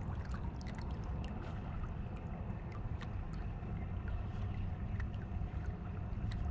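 Steady low rumble of wind on the microphone and water lapping at a kayak's hull, with scattered faint clicks.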